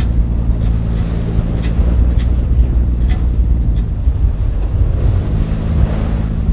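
A fishing boat's engine running steadily, its note shifting slightly about five seconds in, with wind buffeting the microphone and the sea washing against the hull.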